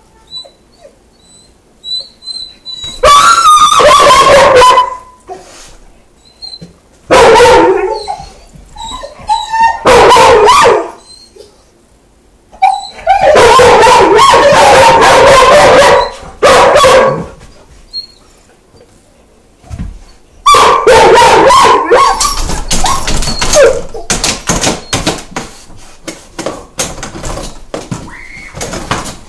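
Weimaraner puppy howling and whining at a closed doggy door, left shut in: five long, loud howls with short whimpers and yips between them.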